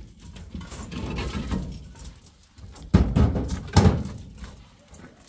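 Two heavy thuds a little under a second apart, amid softer knocking and handling noise.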